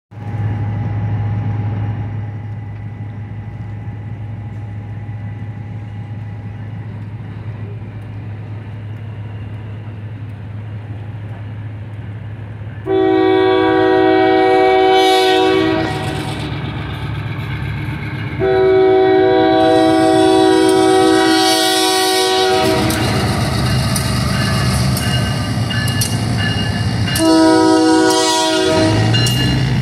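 Diesel locomotive running steadily at a distance, then its multi-chime air horn sounds two long blasts and a short one, the long-long-short opening of the grade-crossing signal. Between and after the blasts the train rumbles across a girder bridge.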